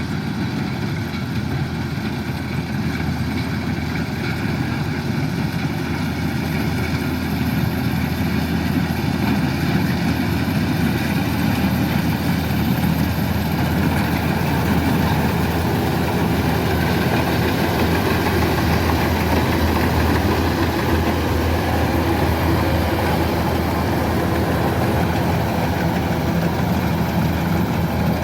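Kubota DC-105X rice combine harvester's engine running steadily, growing a little louder over the first several seconds.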